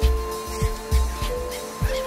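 Background music: a steady bass beat, about three a second, under held notes.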